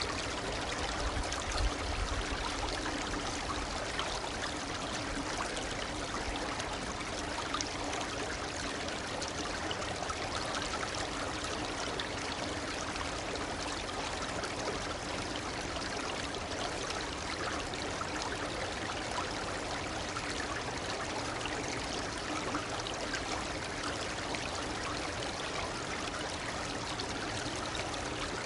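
Shallow stream murmuring, a steady trickling and rushing of running water, with a brief low rumble about two seconds in.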